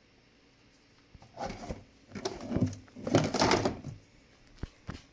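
Handling noises from lobster preparation: three short bouts of scraping and rustling about a second apart, starting a little over a second in, then a couple of sharp clicks near the end.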